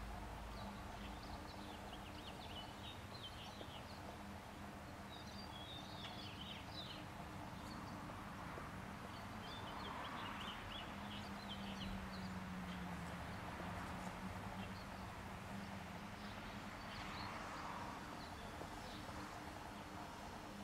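Honey bees foraging on weeping cherry blossoms, their buzzing a low hum that swells and wavers as bees pass close. Birds chirp in short high twittering clusters every few seconds.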